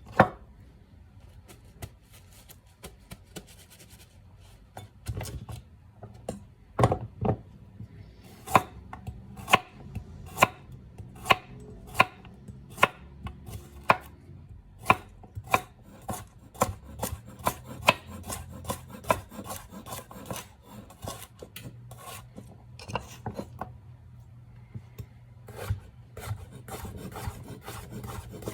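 Kitchen knife chopping on a cutting board: sharp, evenly spaced strokes, sparse at first, then a steady run, quickening and lighter in the middle, with a short pause before more cuts near the end.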